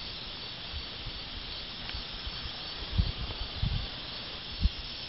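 Outdoor ambience: a steady hiss with a few brief low rumbles, like wind or handling on the microphone. No gunshots.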